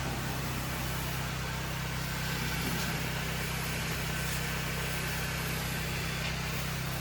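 An engine running steadily at a constant speed, with an even hiss over it.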